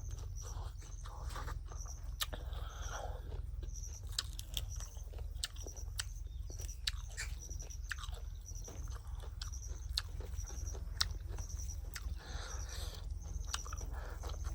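Eating at close range: chewing and biting, with many sharp clicks, as a mukbang eater works through a meal of cooked paddy-field snails.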